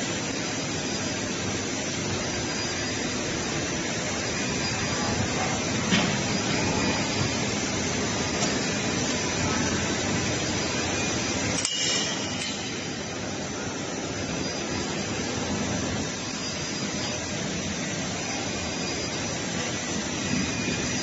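Steady hissing factory-floor machinery noise, with a few light knocks and clinks, and an abrupt change about halfway through.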